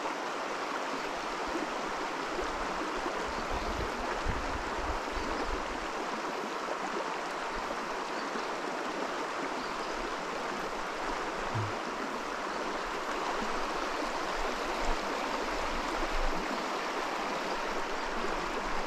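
Steady rush of flowing stream water, with a few low rumbles about four to six seconds in.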